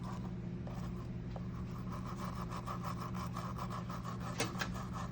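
A steady mechanical hum with a fast, even pulsing, typical of a small motor or fan running, and a single sharp click about four and a half seconds in.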